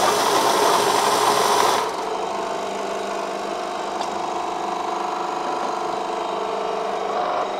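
Steady hum of a running workshop machine motor with several fixed tones. A loud hiss over it for about the first two seconds cuts off suddenly.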